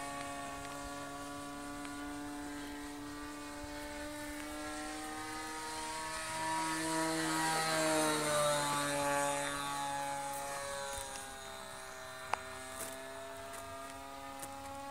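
Alcohol-fuelled engine of a radio-controlled model airplane droning steadily in flight. It grows louder and shifts slightly in pitch around the middle as the plane passes, then eases off again. A single brief click comes about twelve seconds in.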